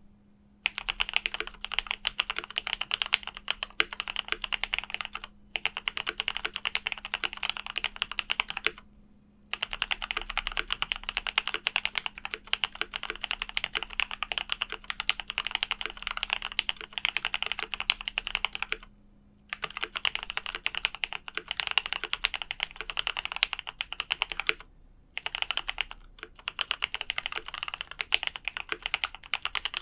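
Fast typing on a KBD67 Lite R2 mechanical keyboard with lubed Gateron Ink Black v2 linear switches, a polycarbonate plate, GMK keycaps and foam dampening: a dense run of keystrokes broken by brief pauses about five, nine, nineteen and twenty-five seconds in.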